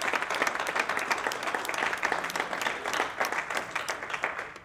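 A small audience applauding, with a few voices underneath; the clapping fades away near the end.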